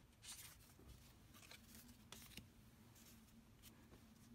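Faint brushing and light ticks of thick tarot cards being slid off a deck and laid down one by one, with a faint steady low hum behind them.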